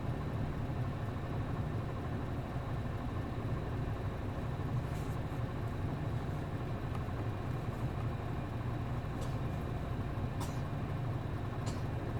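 Hino MD92TJ diesel engine of a city bus idling steadily while the bus stands at a stop, with a few faint clicks in the second half.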